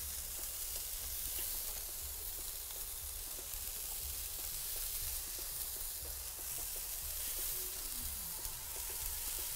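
Chicken kebab skewers sizzling steadily on the hot grates of a gas grill preheated to about 600 degrees, with occasional light clicks.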